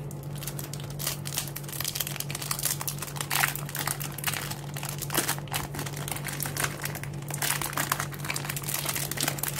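Clear plastic wrap crinkling as it is peeled and crumpled off a new speed cube by hand, an irregular crackling throughout.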